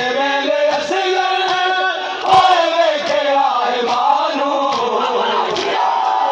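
Crowd of mourners chanting a noha (Shia lament) together, with a steady beat of hands striking chests (matam) a little more than once a second; one strike a little past two seconds in stands out as loudest.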